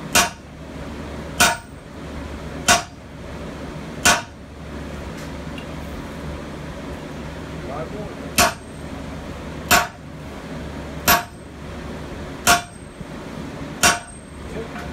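A striker's sledgehammer hitting hot steel on an anvil, driving a drift through the eye of a forged hammer head. There are four sharp blows about 1.3 seconds apart, a pause of about four seconds, then five more at the same pace, over a steady low hum.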